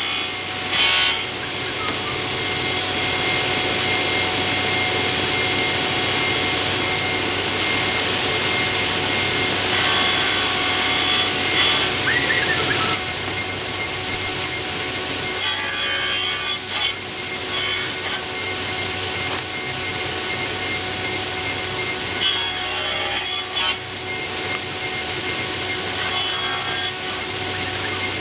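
Large circular saw running and cutting 45-degree mitres on wooden boards, a steady machine noise that changes as each piece is fed through, with a few short knocks as the pieces are handled.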